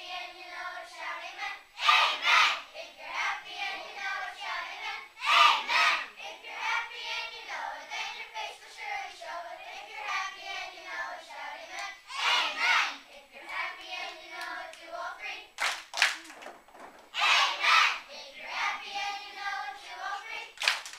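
A children's choir singing, with sharp claps breaking in now and then among the sung notes.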